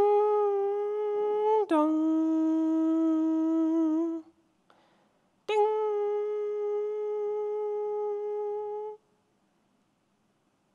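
A person humming a bell chime. A held high note drops to a lower one (ding-dong), and after a pause of about a second the high note comes once more, held for about three and a half seconds.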